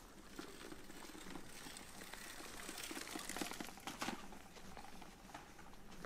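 Bicycle tyres crackling over dry leaves and twigs on a dirt forest track, getting louder as the bike rides past about three to four seconds in, with a sharp twig snap near four seconds.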